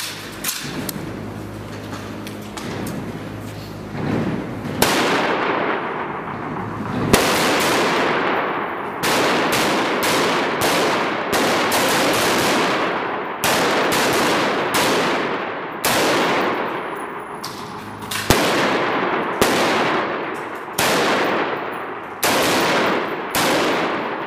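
M16-series rifle firing: a string of about fourteen loud reports from about five seconds in, roughly one to two seconds apart, each with a sharp crack and a tail that dies away over about a second.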